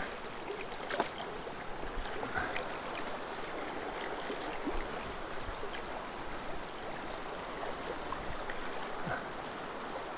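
Shallow river flowing over rocks: a steady rush of water, with a few faint ticks.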